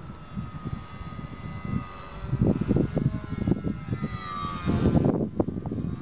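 Homemade RC model airplane's motor and propeller whining in flight, the pitch bending up and then dropping as it passes close about five seconds in. Gusts of wind buffet the microphone throughout.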